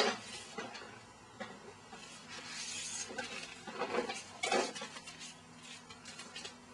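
A few short knocks and clinks with light rustling: small objects being handled and knocked about in a plastic bin.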